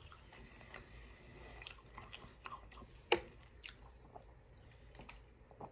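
Mouth sounds of a man chewing a breaded chicken strip: faint wet chewing with scattered small clicks, and one sharper click about three seconds in.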